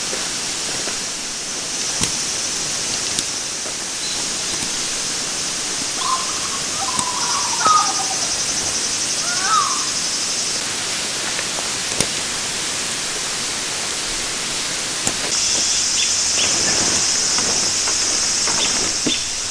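Forest ambience: a steady hiss with a high insect buzz that comes and goes, a few short bird chirps about six to ten seconds in, and a few sharp clicks.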